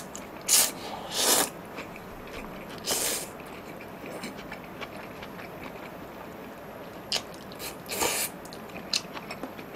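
Jjamppong noodles being slurped in several short, loud pulls, with quieter chewing between them.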